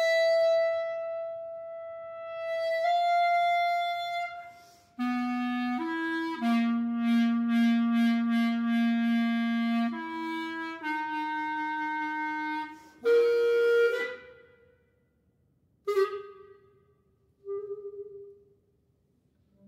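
Solo clarinet playing contemporary concert music: a long held high note steps up to a slightly higher one, then low and high notes sound together, with rapid repeated articulations over a sustained low tone. About thirteen seconds in comes a loud accented note, followed by two short notes separated by pauses.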